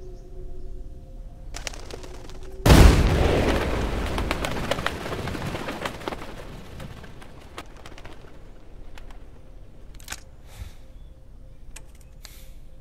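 A single loud gunshot about three seconds in, followed by a long fading tail in which a flock of pigeons takes off with a flurry of wingbeats.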